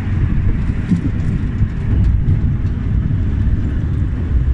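Tram running, a steady low rumble with a few faint ticks.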